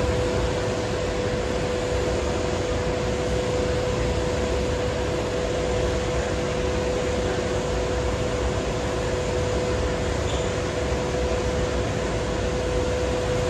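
Steady airliner cabin noise: an even rush of air with a constant hum underneath.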